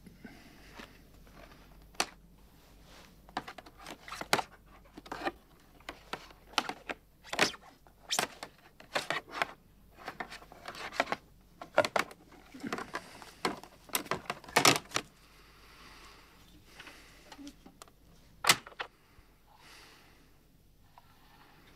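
A vinyl record and an old record player handled with a bare foot: irregular clicks, taps and knocks as the record is set down on the turntable's spindle, thickest in the middle.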